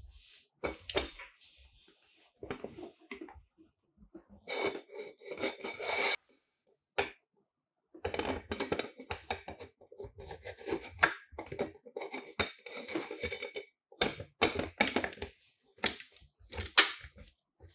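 Softbox fabric rustling and scraping as a Godox SL60W LED light is worked into a Godox octagon softbox's Bowens mount ring, in irregular bursts broken by sharp plastic-and-metal clicks and knocks.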